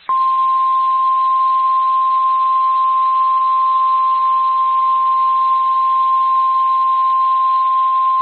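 Emergency Alert System alert tone for a severe thunderstorm warning: one loud, steady, unbroken tone a little above 1 kHz, the NOAA Weather Radio 1050 Hz warning alarm tone, starting just after the start over a faint radio hiss.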